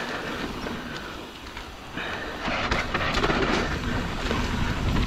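Mountain bike hydraulic disc brakes (Magura MT7) dragging and howling under hard braking on a steep, loose descent, mixed with tyres sliding over dirt and gravel. The sound dips about a second in and swells again about two seconds in; the brakes are struggling to hold the bike on the slope.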